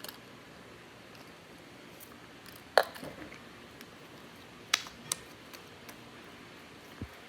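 Slime being mixed by hand, with a few sharp clicks and snaps: a loud one about three seconds in and two more a couple of seconds later.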